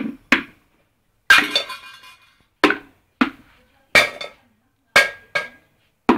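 Homemade drum kit of tin cans and buckets with metal lids for cymbals, hit with a stick by a small child: uneven single strikes and quick pairs about a second apart, some leaving a short metallic ring.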